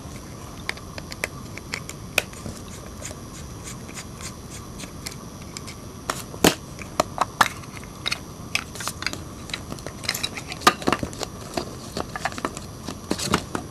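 Scattered clicks and snaps of hard plastic as a Nokia mobile-phone charger's case is handled, pulled apart and its circuit board slid out. The clicking is sparse at first and comes thicker in the second half.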